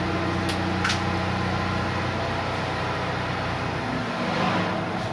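Steady hum of marine diesel engines running in a tugboat's engine room, with two short clicks about half a second and one second in. The deepest part of the hum fades about four seconds in.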